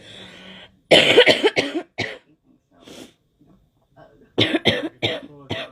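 A girl coughing in two fits of several quick coughs each, the first about a second in and the second about four and a half seconds in. A breath is drawn in before the first fit.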